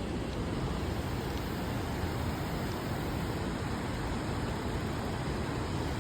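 Steady rushing of a waterfall, an even unbroken roar of falling water.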